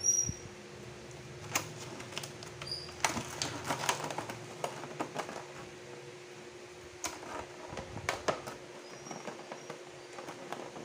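Clear plastic clamshell cake containers clicking and crackling as they are handled and a ribbon is tied around one, in scattered sharp clicks, over a steady low hum.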